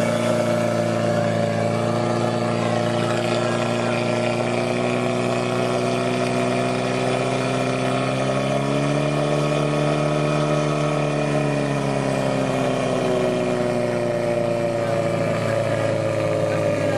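Portable fire pump's engine running hard at high revs as it pumps water to the hose lines, its pitch rising a little about eight seconds in and easing back down a few seconds later.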